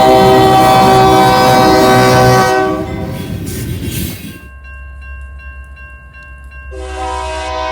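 Nathan K3LA three-chime locomotive air horn sounding a steady chord that stops about two and a half seconds in. Rail noise trails off into a quieter stretch with a low rumble. Another horn chord starts near the end.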